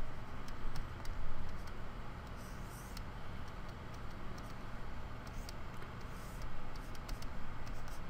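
A stylus tapping and sliding on a graphics tablet as a cartoon is drawn: scattered light ticks and a few short scratchy strokes, over a low steady hum.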